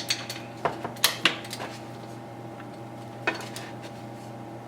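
Irregular metallic clicks and clinks of a wrench working a motorcycle fork's pinch bolts, several in the first second and a half and one more a little past three seconds, over a steady faint hum.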